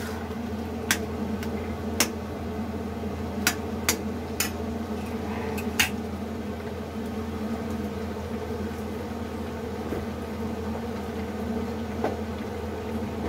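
Carrot-and-milk mixture for gajar halwa cooking down in an iron kadhai on a high flame, with about six sharp ticks in the first six seconds and one more near the end, over a steady low hum.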